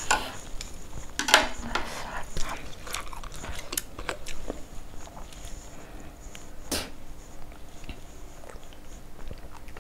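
Close-miked chewing and mouth sounds of someone eating noodles, with sharp wet clicks. Then a plastic bottle cap is twisted open, with a few small clicks and one sharp click.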